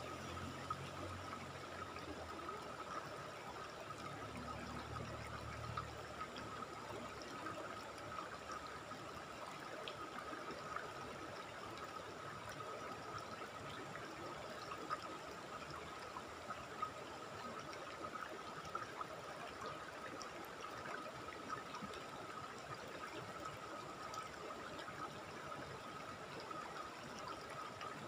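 River water rushing over rocks and shallow rapids, with a steady high-pitched drone above it and a low rumble in the first few seconds.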